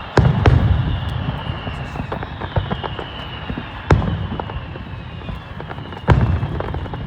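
Fireworks going off: four loud bangs, the first two close together just after the start, the others about two seconds apart, each followed by a low rumbling echo, with smaller pops and crackles in between.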